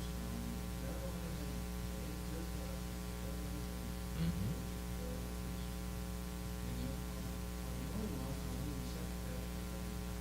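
Steady electrical mains hum with a stack of evenly spaced overtones, with faint, indistinct talking far from the microphone underneath.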